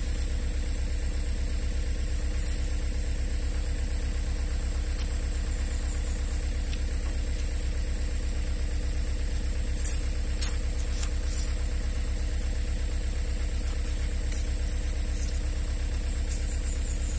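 Diesel engine of an excavator idling steadily, a low, even throb, with a steady high whine above it. A few brief clicks about ten seconds in.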